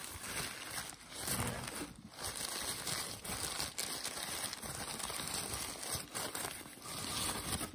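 Crumpled tissue paper crinkling and rustling continuously as hands unwrap it.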